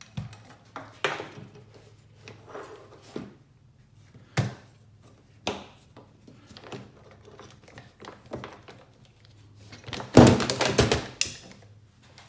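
A rifle and a rigid MOLLE panel with rifle mount clamps being handled on a rubber bench mat: a series of separate knocks and thunks, then a loud clattering run of knocks about ten seconds in.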